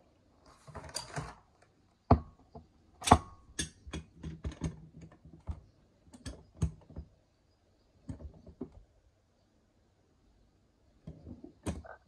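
Sharp metallic clicks and taps from fitting braided flexible hoses to a toilet cistern's inlet and working the connector nut with a spanner: a short rustle about half a second in, then a quick run of clicks, with a few more near the end.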